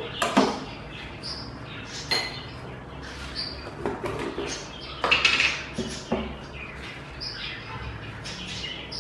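Silicone spatula stirring melting butter in a nonstick wok: a few soft scrapes and knocks against the pan, with several short high bird chirps in the background.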